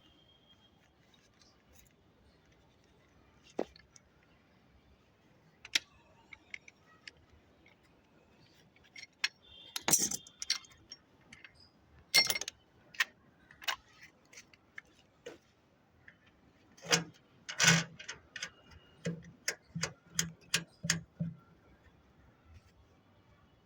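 Sharp metallic clicks and clinks of a copper-pipe flaring tool being worked, scattered at first, then a run of about eight quick clicks, roughly two a second, near the end.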